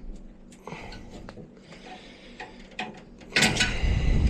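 Handling noise from work on the boiler: a few light clicks and knocks, then a louder scraping rustle from about three seconds in.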